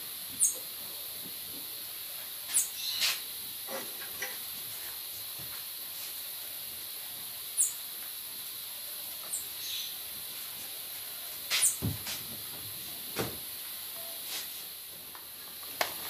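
Occasional light knocks and clicks from handling at a top-loading washing machine, its lid being opened, over a steady hiss. A few short high chirps come now and then.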